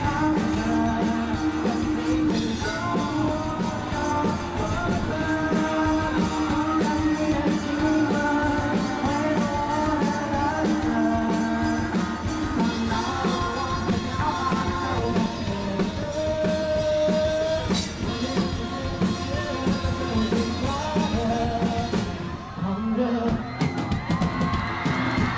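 Live pop-rock band performance: a male lead vocalist singing into a microphone over electric guitar, keyboard and band accompaniment, amplified through a PA.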